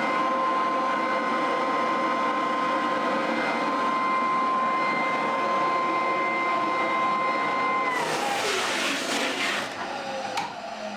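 Floor sanding machine running on a wooden floor with a steady high whine; about eight seconds in the whine drops and the motor winds down, with a short rattling noise as it stops. The machine cutting out is the sign of a blown fuse in the supply.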